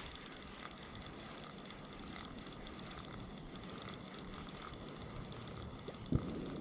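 Steady outdoor background noise with faint high steady tones running through it, and one dull thump about six seconds in.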